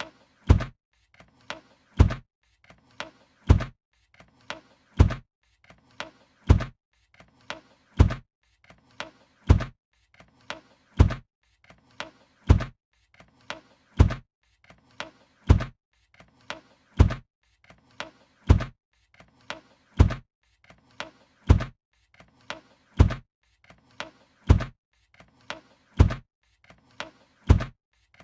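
A suitcase being shut, again and again: each time a soft knock, then a loud thump as the lid closes, repeating about every one and a half seconds.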